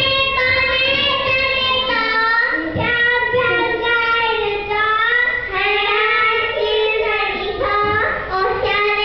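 A young child singing a song, one voice holding long sung notes.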